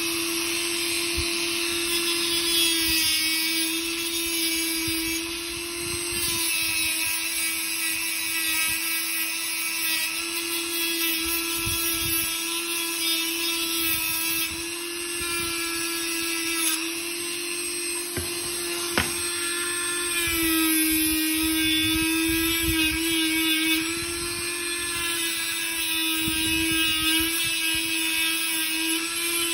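Dremel rotary tool running steadily at high speed, its small brush wheel cleaning rust off the straight razor's tang and jimps; the motor's whine dips slightly in pitch now and then as the wheel is pressed to the steel.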